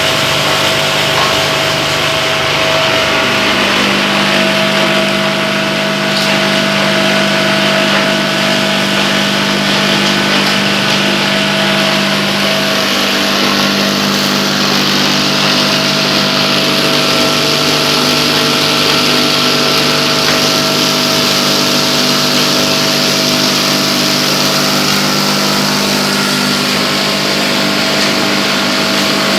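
Wet waste chopper-grinder with rotary blades running steadily under power. It makes a loud, continuous machine hum with constant tones over a hiss, and its low tones shift slightly a few seconds in and again about halfway through.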